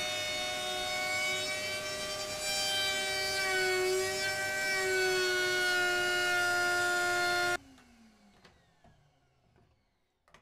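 Raitool 800 W trim router with a 45-degree chamfer bit cutting the edge of birch plywood, taking light passes: a steady high whine whose pitch dips slightly and recovers as the bit cuts. The sound stops abruptly about seven and a half seconds in, leaving a faint falling whine.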